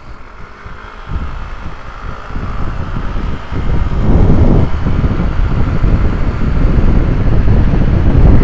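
Yamaha Mio M3 automatic scooter with an upgraded CVT accelerating hard from a standstill, its single-cylinder engine running up as speed builds. Wind noise on the microphone grows over the first four seconds and then stays heavy and loud.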